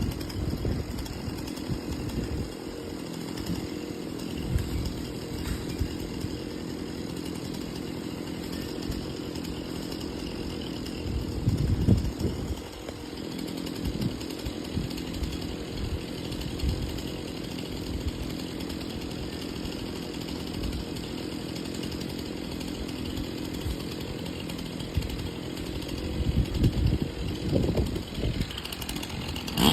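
PROYAMA 62cc two-stroke chainsaw engine running steadily at idle, with a few low thumps about twelve seconds in and again near the end.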